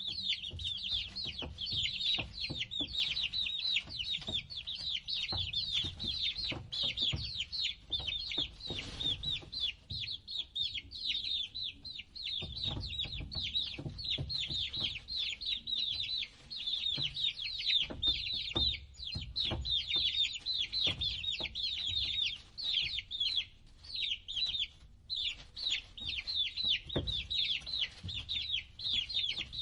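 A brood of domestic chicks peeping together: a constant, overlapping stream of short, high peeps that slide downward, with soft low knocks underneath.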